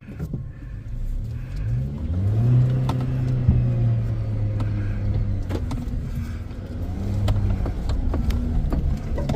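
Off-road vehicle's engine revving under load. Its pitch climbs about two seconds in, holds, eases off midway, then climbs again, with scattered knocks and clatters over it.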